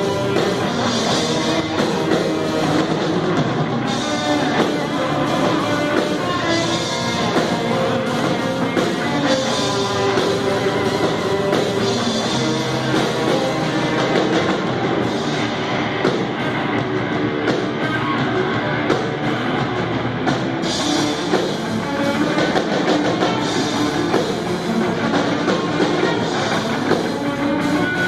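Rock band playing a song with a drum kit and guitar, at a steady level.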